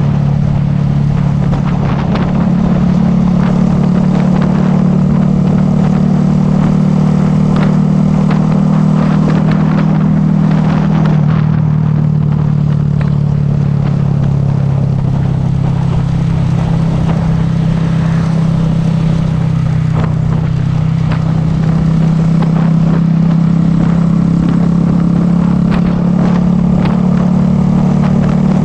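Motorcycle engine running steadily while under way, with road noise. Its pitch drops about eleven seconds in and climbs back a little after twenty seconds.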